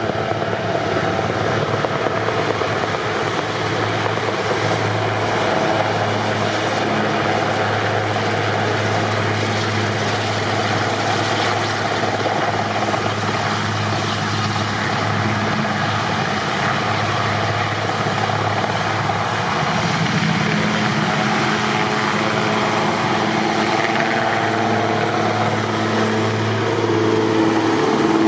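Eurocopter AS532 Cougar military helicopter running at close range: steady rotor noise with a thin, high turbine whine above it from its twin turboshaft engines, at low hover, on lift-off and flying past.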